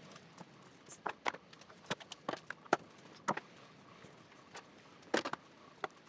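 Scattered light clicks and knocks of small items being picked up and set down as a wooden workbench is cleared, about a dozen at irregular intervals.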